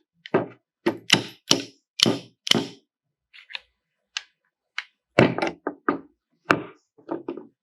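Sharp knocks and taps of metal parts being worked and fitted into place in a tractor PTO engagement lever assembly: a run of hard knocks, a few light clicks, then another run of knocks.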